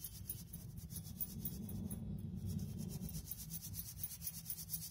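Dry ginger powder being sifted through a fine metal mesh sieve: a soft, steady scratchy rubbing of powder against the mesh.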